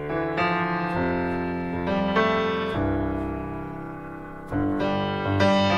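Piano intro music: chords struck every second or so and left to ring and fade.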